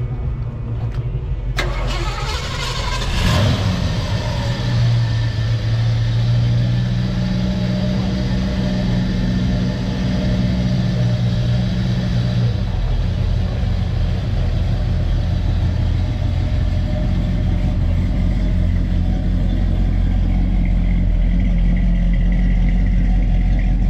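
A car engine starts about one and a half seconds in and revs briefly, then runs steadily with a low, even drone. Its note shifts lower about halfway through.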